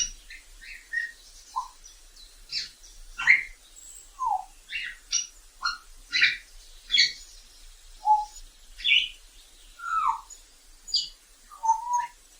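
African grey parrot giving a string of short whistles and chirps, one or two a second, each at a different pitch, some sliding downward.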